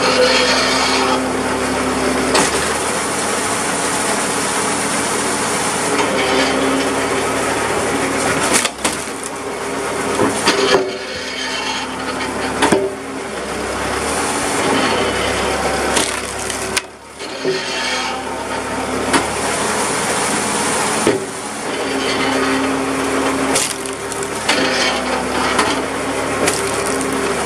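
Homemade tractor-PTO hydraulic wood splitter running steadily, its engine-and-pump note changing in stretches as the ram works. Sharp cracks of hardwood rounds splitting against the wedge are heard several times.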